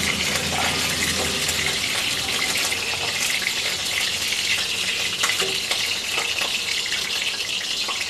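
Oil sizzling steadily as it heats in a kadai on the stove, with a few light clinks of onion, garlic and ginger pieces dropping into a steel mixer-grinder jar.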